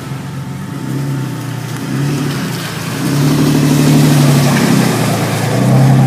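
Engine of an off-road Jeep Cherokee XJ 4x4 driving slowly past at close range, growing louder as it comes alongside, with a second 4x4 following.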